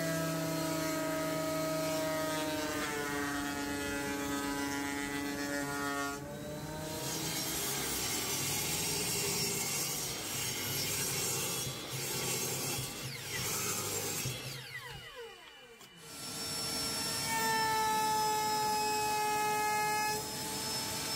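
Woodworking power tools in turn: a Metabo benchtop thickness planer's motor running steadily, then a saw cutting wood and spinning down with a falling whine about fifteen seconds in, then a router table's motor starting up and running steadily.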